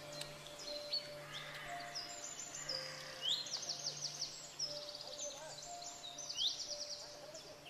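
Birds chirping and singing, with quick rising calls and rapid trills, over quiet background music with low held notes.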